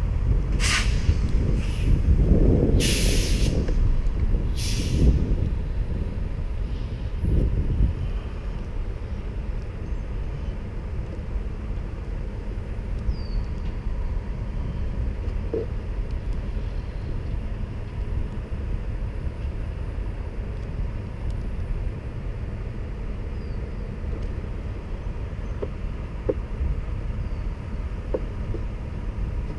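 Steady low outdoor rumble, with four or five short hissing bursts in the first five seconds.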